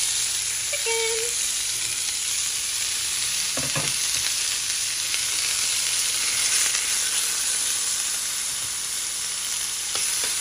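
Diced raw chicken breast sizzling in hot olive oil in a cast iron skillet: a steady frying hiss.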